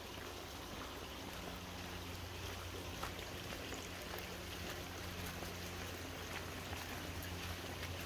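Shallow rocky stream flowing over stones, a steady rush of water.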